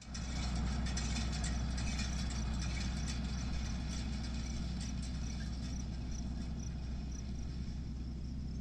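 A tractor engine running steadily at a low, even idle.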